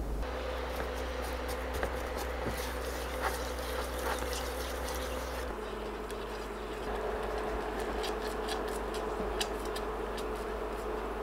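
Steady electric buzz of a cooktop heating an enamel saucepan, with a spatula stirring raspberry jam and faint clicks and pops as the jam cooks. The tone of the buzz changes at a cut about five seconds in.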